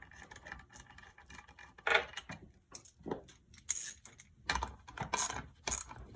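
Irregular metallic clicks and clinks of hand tools and small bolts being handled against an engine's aluminium cases, with a few louder clacks in the second half.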